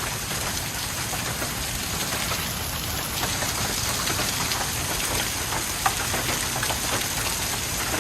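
Rain mixed with hail falling, a steady downpour hiss with many small ticks of hailstones striking the ground and nearby surfaces, and one sharper knock about six seconds in.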